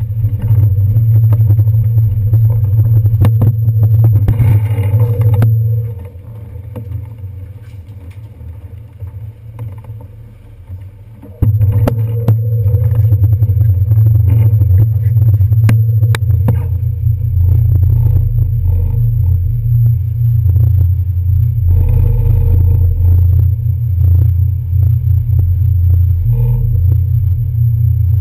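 Low, steady rumble of a NY Waterway ferry's diesel engines at the slip, dropping away for about five seconds midway and then coming back abruptly. Scattered clicks and clatter from a bicycle being wheeled over the gangway and onto the deck.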